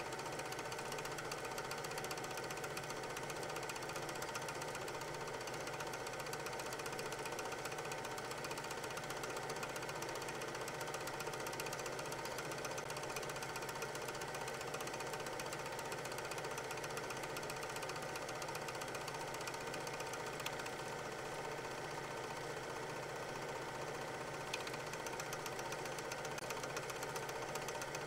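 An 8 mm film projector running: a steady, rapid mechanical clatter over a constant motor hum, with two faint ticks in the last third.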